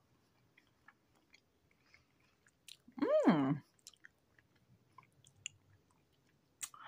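Faint mouth sounds of someone chewing a pickled quail egg: scattered small clicks and soft squishes. About three seconds in, a short wordless vocal sound slides down in pitch, the loudest thing heard, and another starts just at the end.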